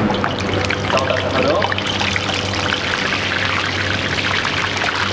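Hot oil sizzling and crackling in a wide frying pan as pieces of food are dropped in to deep-fry. The crackling thickens about a second and a half in, over a steady low hum.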